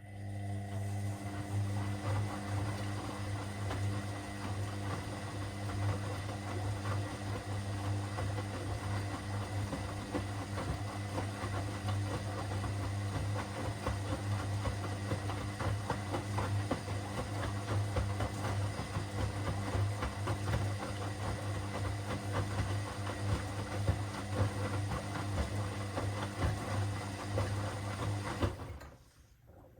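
Washing machine running a phase of its cycle: a steady low motor hum with water and drum noise over it. It starts abruptly and cuts off about a second before the end.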